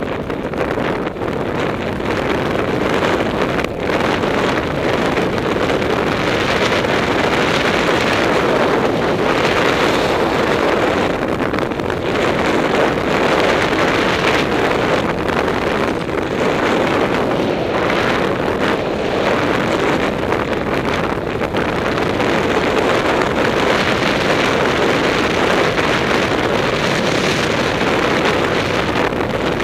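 Steady rushing wind noise on the microphone of a skier's camera during a fast run, mixed with the hiss of skis sliding over groomed snow.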